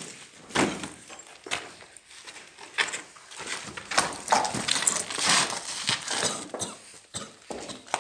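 A physical scuffle between two people: irregular knocks, thumps and rustling as one person is grabbed and shoved against a wall.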